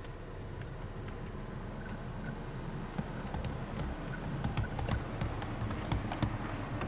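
Model train of a diesel locomotive hauling Mk2 coaches running along the track, a low rumble with rapid, irregular clicks of wheels over rail joints, getting louder from about three seconds in as it passes close by.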